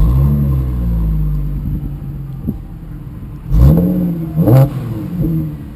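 Audi B8 S4's supercharged 3.0-litre V6 revved in place through an AWE resonated exhaust: one long rev that sinks back over about three seconds, then two quick throttle blips near the end.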